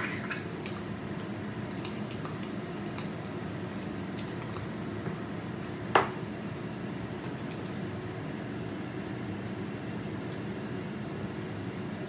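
Chopsticks and spoons clicking faintly against stainless-steel bowls while eating, with one louder clink about halfway through, over a steady low background hum.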